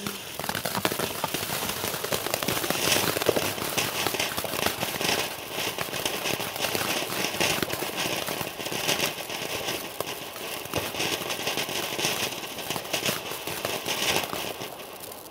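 Ground firework fountain burning: a steady rush of sparks thick with crackling, dying down near the end.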